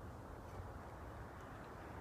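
Faint, steady woodland background noise with a low rumble and a few faint, small ticks; no clear knock is heard.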